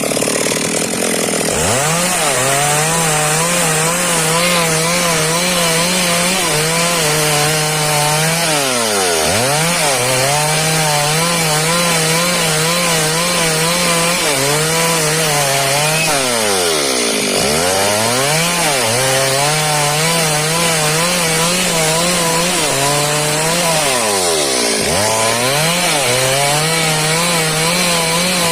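Chainsaw engine held at high revs while cutting wood, its pitch wavering under the load. Four times, about every eight seconds, the revs drop sharply and climb straight back up.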